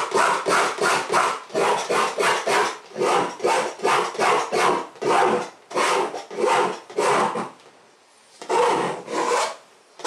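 Paintbrush scrubbing oil paint onto a stretched canvas in quick back-and-forth strokes, about two to three a second, with a brief pause about eight seconds in before a few more strokes.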